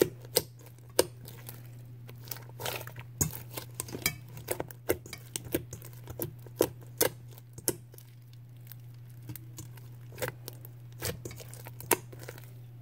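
Pink slime with large foam beads being squished and kneaded by hand in a stainless steel bowl: a run of irregular sticky clicks and pops, over a steady low hum.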